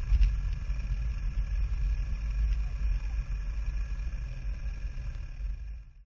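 Motorcycle riding at low speed: a steady low engine rumble mixed with wind on the microphone, getting gradually quieter and fading out just before the end.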